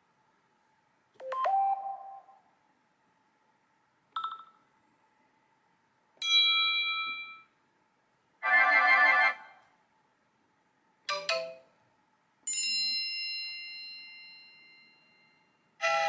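A run of classic iPhone text tones played one after another: about seven short chimes and jingles, each a second or so long, with brief silences between them. One rings on and fades out over about three seconds, and another begins right at the end.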